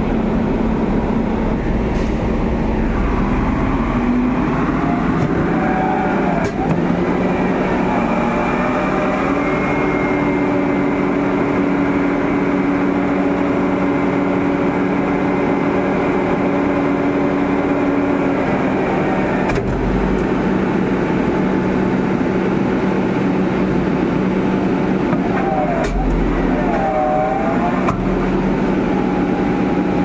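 Sany concrete pump running, its engine and hydraulic system giving a steady drone whose pitch shifts now and then. A few knocks come through, the clearest about a third of the way in and again past halfway.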